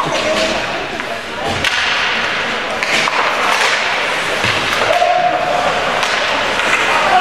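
Ice hockey play: skates scraping the ice and sticks cracking against the puck in a few sharp hits, with spectators' voices and one long held call from about five seconds in.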